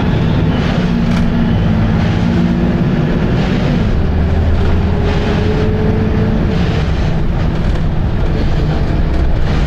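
Volvo B7RLE bus's six-cylinder diesel engine running hard under way: a loud, steady thrash with a thin whine that rises slowly in pitch midway.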